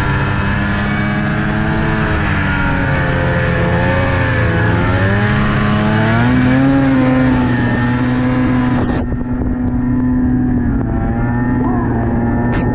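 Snowmobile engine running under way. Its pitch sags and then climbs again with the throttle about halfway through, then holds steady.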